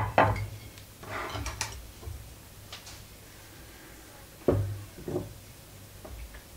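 Wooden sticks handled and knocked against a wooden tabletop: two sharp knocks at the start and two more about four and a half and five seconds in, with light handling rustle between.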